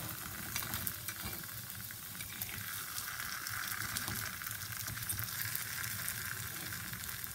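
Oil sizzling and crackling steadily around kuzhipaniyaram batter frying in the wells of a paniyaram pan, with light scrapes and taps of a spoon and fork turning the balls over.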